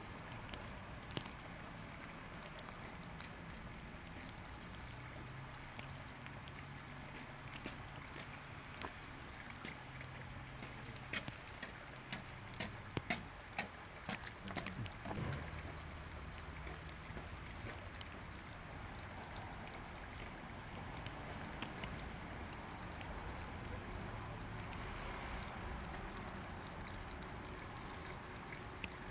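Steady background rumble with a low hum that comes and goes, and a cluster of clicks and knocks about halfway through.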